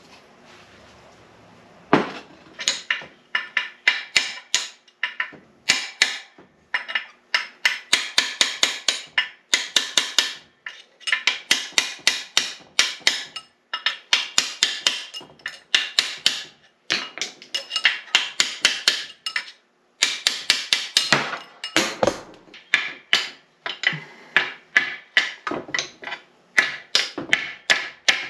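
Hammer blows on the steel parts of an NP205 transfer case during teardown, starting about two seconds in as rapid runs of sharp strikes, several a second, broken by short pauses.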